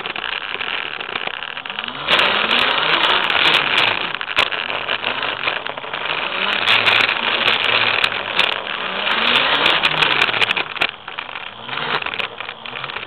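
eZip E400 electric scooter being ridden: a loud rushing motor and drive noise that swells about two seconds in and eases off near the end, with a whine rising and falling in pitch as it speeds up and slows, and scattered rattles and clicks.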